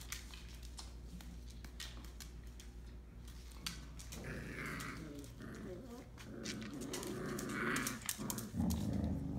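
Five-week-old Entlebucher Mountain Dog puppies play-growling and whimpering. The growls grow louder from about halfway through, the strongest near the end, over scattered small clicks and scuffles.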